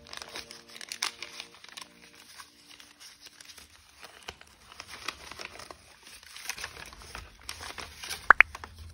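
Kraft paper being unfolded and handled, a run of crinkling and rustling with sharp crackles. Near the end two short high-pitched tones stand out as the loudest sounds.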